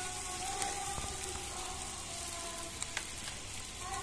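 Sliced onions and green chillies sizzling steadily in hot oil in a large iron karahi, with one light tap about three seconds in.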